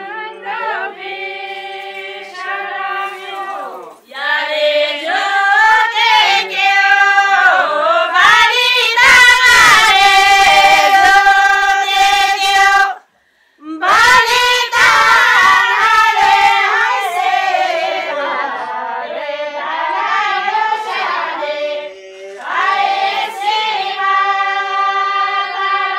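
A group of women singing a Kinnauri folk song together in unison, with long held, wavering notes and no instruments. The singing breaks off briefly about halfway through, then goes on.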